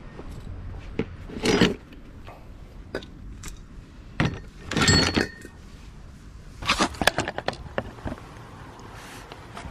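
Handling noises: metallic clinks and clunks, with louder rustling bursts about one and a half seconds and five seconds in, and a quick run of sharp clicks about seven seconds in.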